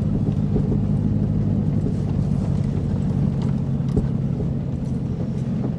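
Car running at low speed, heard from inside the cabin as a steady low hum. A single short click comes about four seconds in.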